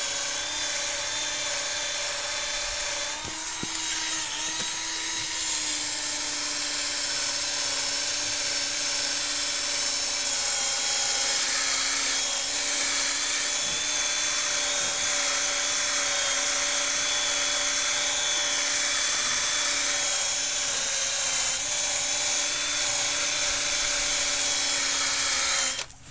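Cordless drill spinning a Mothers PowerBall foam polishing ball against a plastic headlight lens to polish off yellowed oxidation: a steady motor whine with rubbing. The motor picks up slightly about four seconds in and stops abruptly near the end.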